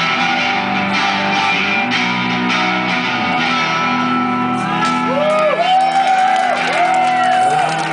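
Live band playing an instrumental break, led by guitar, with notes that bend up and down in pitch in the second half.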